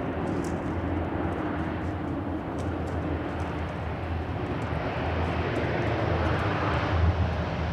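De Havilland Canada Dash turboprop airliner running, a steady engine drone with a strong low hum that grows gradually louder over the last few seconds.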